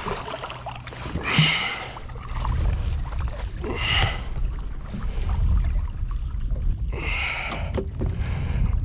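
Wind rumbling on the microphone, with a few short bursts of noise about a second and a half in, at four seconds, and around seven seconds.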